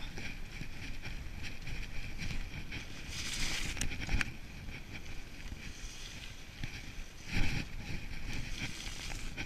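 Mountain bike rolling along a dirt and gravel track: steady tyre rumble and wind buffeting on the microphone. A louder hiss from the tyres with a couple of clicks comes about three seconds in, and a knock from the bike going over a bump near the end.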